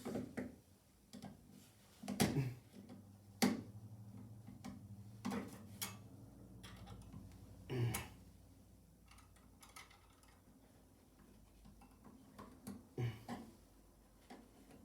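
Scattered light clicks and knocks, irregular and a second or two apart, from handling a screwdriver, wire and outlet while wiring a wall outlet.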